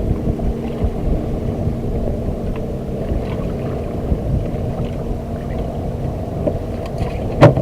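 Low rumbling wind noise on the microphone aboard a small boat, with a single sharp knock near the end.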